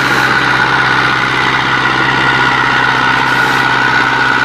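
Massey Ferguson tractor's diesel engine running at steady revs as the tractor churns through deep mud, the engine note holding an even pitch throughout.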